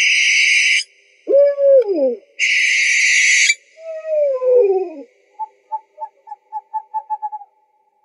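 Owl calls: two harsh, hissing screeches alternate with pitched calls that fall in pitch, followed after about five seconds by a run of short hoots that come faster and faster.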